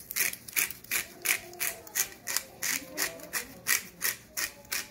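Hand-twisted pepper mill grinding pepper onto raw chicken breasts, a rhythmic grinding of about three grinds a second.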